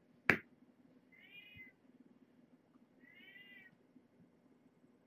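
A month-old kitten meowing twice, each a short mew that rises and falls in pitch, about two seconds apart. A single sharp click comes just before the first mew.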